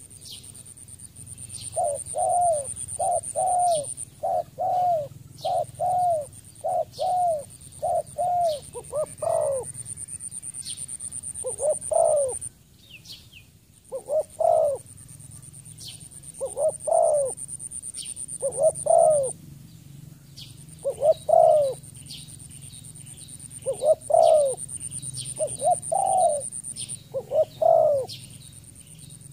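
Spotted dove cooing over and over: a quick run of short coo notes at first, then phrases of two or three notes about every two and a half seconds. A steady high-pitched tone and short high chirps from smaller birds sound behind it.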